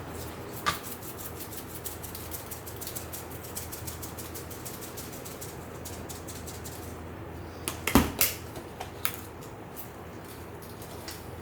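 A run of light, quick clicks and taps, with one sharp, louder knock about eight seconds in and a few smaller knocks after it.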